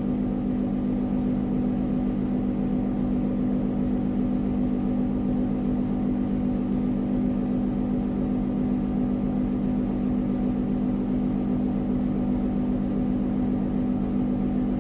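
A steady low mechanical hum that does not change, with no distinct knocks or clicks.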